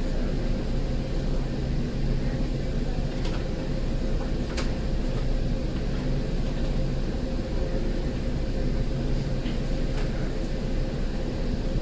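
Steady hum of an MBTA Green Line light-rail car's onboard equipment, heard from inside the car, with one held tone and a few faint clicks; the car is standing at a stop with its ventilation running.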